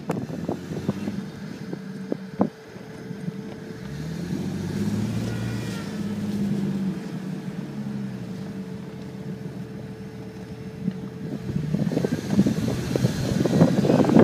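Jeep engine running under load in deep snow, its pitch rising and falling as the driver works the throttle. Near the end a louder rough, crackling rush comes in as the tyres churn through the snow.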